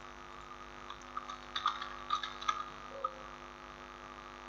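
Steady electrical mains hum, with a run of faint computer mouse clicks a second or two in.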